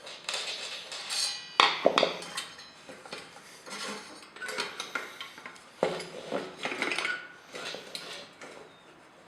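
Clicks, rattles and knocks of plastic fan parts being handled, with a couple of sharper knocks, as an exhaust fan is taken apart or put back together.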